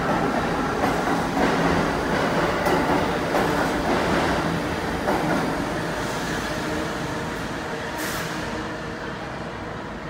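R68 subway train pulling out of the station and running past, its wheels knocking over the rail joints under a dense running noise. The sound fades steadily as the last car heads off into the tunnel, with one short sharp noise about eight seconds in.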